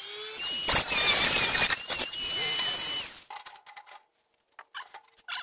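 Dremel rotary tool with a cutoff wheel running and cutting through the sheet-steel top of a filing cabinet, a steady high whine over a grinding hiss with two sharp hits, switched off about three seconds in. A few light metallic clicks and rattles follow near the end.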